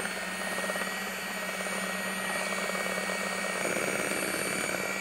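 Electric hand mixer running steadily, its twin beaters whipping cream and sugar in a glass bowl. The motor's hum shifts slightly about three and a half seconds in.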